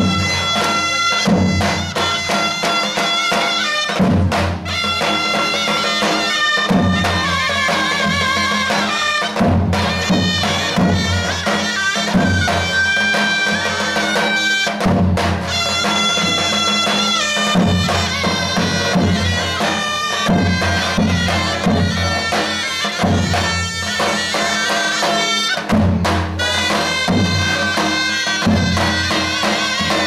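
Turkish folk music: two davul bass drums beaten with a heavy mallet and a thin stick give deep, irregular thumps under two reedy wind pipes playing a loud, buzzing, ornamented melody.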